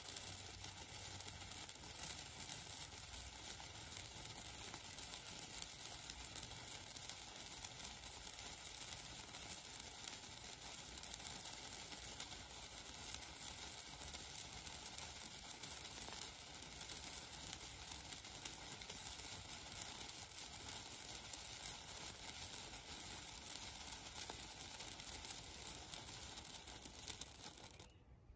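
A No. 10 bamboo-stick colour sparkler burning with a steady hissing crackle of sparks, dying away near the end as it burns out.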